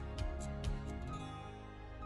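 Background music: a quick, steady beat of about four hits a second over held chords. The beat drops out about a second in, leaving the chords.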